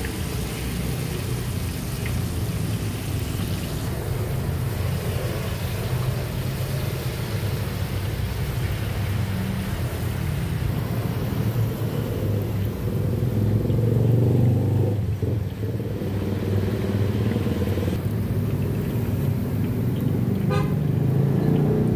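Passing road traffic: a steady rumble of car and motorcycle engines that grows louder about two-thirds of the way through, with a short rattle of clicks near the end.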